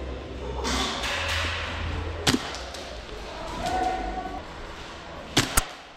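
Airsoft gun shots: one sharp snap a little over two seconds in, then two more in quick succession near the end, over a low rumble and shuffling noise.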